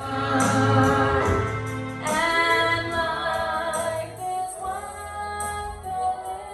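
Live gospel worship music in church: voices, women's voices to the fore, singing long held notes over the band, with a regular high shimmer of percussion.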